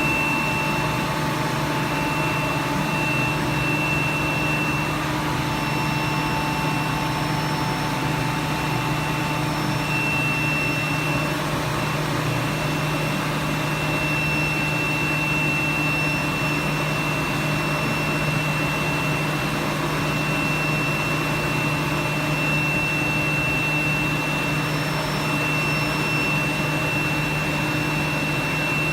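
Diesel particulate filter cleaning machine running steadily, a constant motor hum with a high whine on top, as it cleans a Mercedes DPF clogged with debris.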